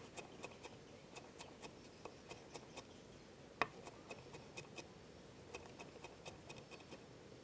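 Kitchen knife mincing fresh ginger on a wooden cutting board: faint, irregular taps of the blade against the board, about two or three a second, with one sharper knock about three and a half seconds in.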